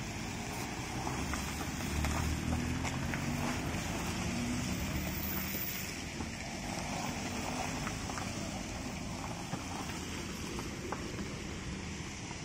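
Road traffic: a car engine's low hum, strongest about two seconds in and fading out by midway, over a steady rushing noise.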